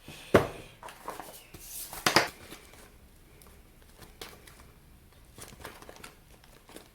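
Packaging being handled: a sharp knock just after the start, a louder rustle about two seconds in, then faint scattered clicks and rustles.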